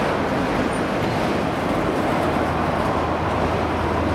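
Freight train rolling past: a steady, even rumble of wheels on rail, with a low hum coming in about halfway through.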